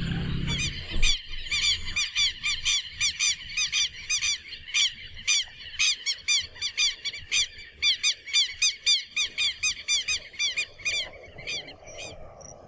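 A cow's low moo ends about a second in. Then a bird calls in a rapid run of short, high chirps, about three a second, for some ten seconds.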